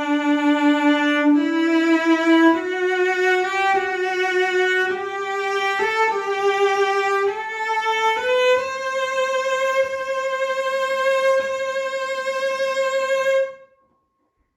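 Breton Breveté cello, a c.1910 Jérôme Thibouville-Lamy instrument from Mirecourt, played solo with the bow in its high register: a slow phrase climbing step by step through held notes to a long final note that stops near the end.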